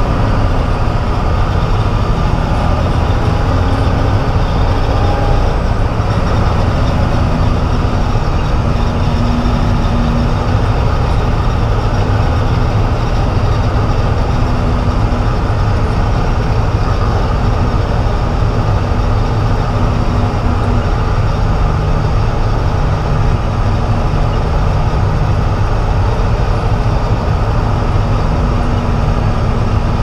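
Peterbilt truck's diesel engine running steadily, heard from inside the cab as it moves slowly across a harvested field: a continuous low drone with a faint steady hum above it.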